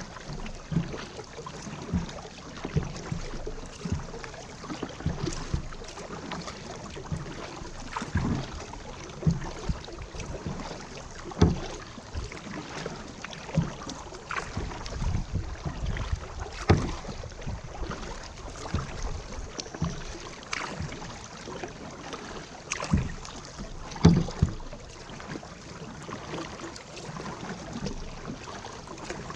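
Kayak being paddled: paddle blades dipping and splashing and water lapping against the hull in an irregular run of short splashes and knocks, a few of them louder.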